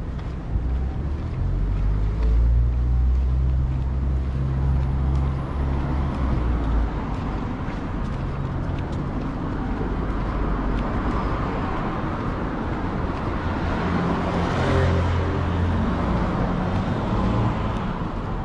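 Road traffic beside the pavement: a vehicle's engine rumble is loudest for the first several seconds, then another vehicle swells up and passes about three-quarters of the way through.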